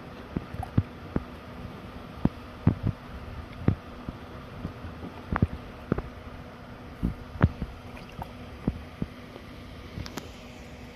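Water slapping and knocking against the hull of a small boat in irregular strikes, about one or two a second, over a steady low hum.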